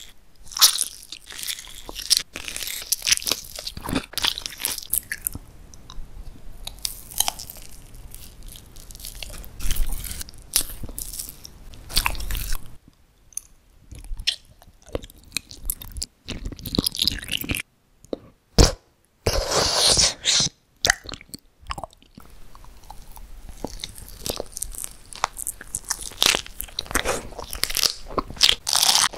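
Close-miked ASMR eating sounds: a mouth biting, crunching and chewing sugar-coated candy and jelly sweets in a string of short takes, with a few brief silent breaks between them.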